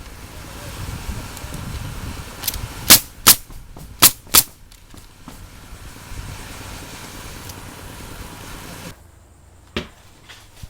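Pneumatic roofing nailer firing nails through asphalt shingles: four sharp shots in two quick pairs, with a fainter one just before, over a steady background hiss that drops away near the end.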